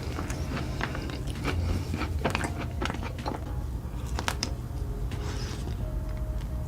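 Close-miked eating of ice cream: chewing and mouth smacking, with many sharp crunchy bites and clicks.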